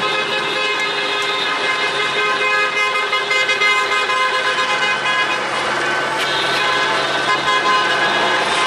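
Several car horns held down at once in a steady, sustained honking, the mix of horn tones changing about six seconds in.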